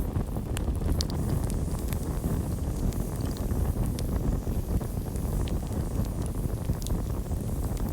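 Campfire burning: a steady low rumble of flames with scattered sharp crackles and pops.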